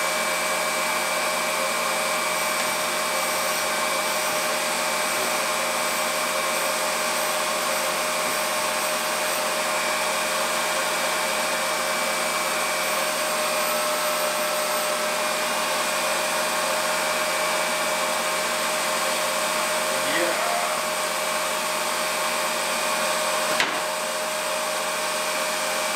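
Electric valve grinder running steadily while Model T engine valves have their stem tips ground down on its stone, taking out extra height so that adjustable lifters will work. A single sharp click comes near the end.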